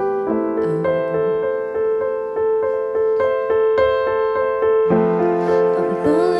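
Electronic keyboard on a piano sound playing a slow ballad accompaniment: a run of single struck notes, a few each second, over a held note, with a new lower chord coming in about five seconds in. A singing voice enters right at the end.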